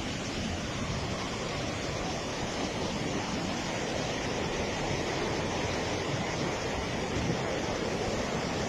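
Muddy floodwater rushing down a wadi in spate: a steady, unbroken rushing noise.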